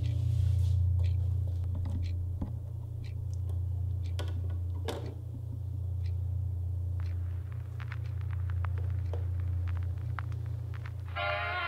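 Small clicks and taps from handling a vinyl record and a portable turntable's tone arm and controls, over a steady low hum; music starts near the end.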